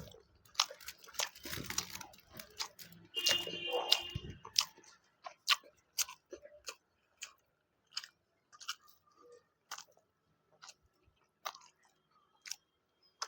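Close-miked chewing and wet mouth clicks of a person eating. The clicks are dense and crackly for the first few seconds, with a brief squeaky smack, then thin out to single clicks about once a second.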